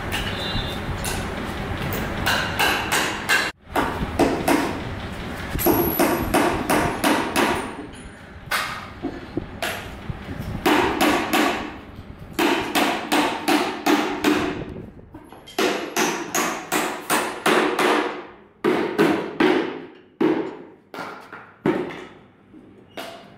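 Hammer nailing together a plywood-and-timber wooden crate: runs of quick blows, several a second, with short pauses between runs.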